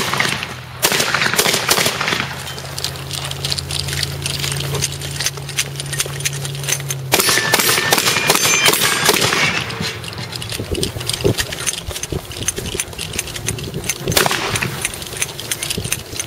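Shotguns fired in rapid strings, many sharp shots in quick succession throughout. A steady low hum runs underneath for the first few seconds.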